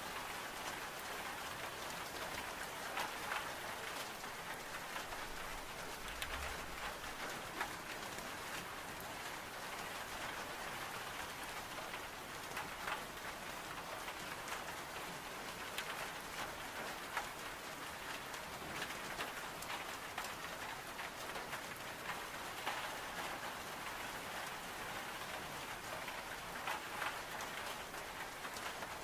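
Steady rain against window glass, mixed with the scattered small crackles of a wood-burning stove.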